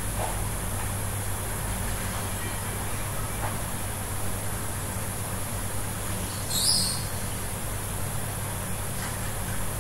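Steady low electrical hum and hiss of background noise on a recording microphone, with one brief high-pitched squeak about two-thirds of the way through.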